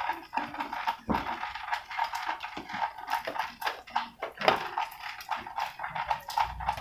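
Rapid, irregular small clicks and clattering, several a second.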